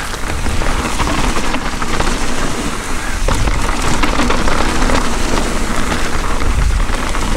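Mountain bike riding down a wet dirt trail, heard through a chin-mounted action camera: steady wind buffeting on the microphone with a heavy low rumble, plus tyre noise and the bike rattling over the ground.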